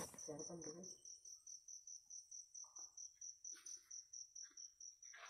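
Night insects chirping faintly in a steady pulsing trill, about four or five pulses a second. A brief muffled voice-like sound comes in the first second.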